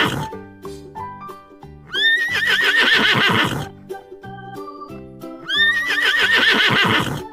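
Horse whinnying twice, each call rising in pitch and then quavering for about a second and a half, over background music. The tail of another whinny is heard right at the start.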